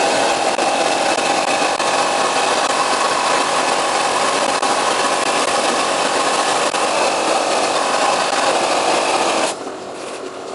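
Wet blaster jetting abrasive slurry onto a motorcycle engine piston to strip the carbon: a loud, steady hiss that cuts off suddenly about nine and a half seconds in, leaving a quieter steady noise from the machine.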